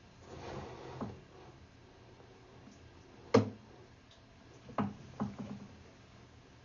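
A few sharp knocks, as of hard objects being handled or set down: one about a second in, a louder one past three seconds, and two close together near five seconds, after a brief rustle at the start.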